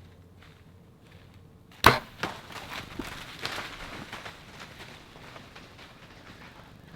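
Bow shot at a whitetail doe: a sharp, loud crack of the string release about two seconds in, a second sharp knock a moment later, then a few seconds of rustling and crackling in leaves and brush that fades out.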